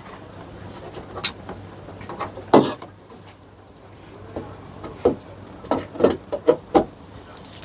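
A run of knocks and clunks from handling the car: one loud clunk about two and a half seconds in, then a quick series of knocks near the end.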